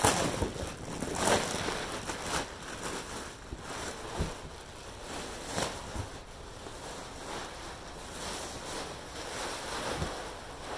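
Plastic wrapping rustling and crinkling as it is pulled off a compressed foam bed-in-a-box mattress, over a steady rush of air as the mattress takes in air and expands.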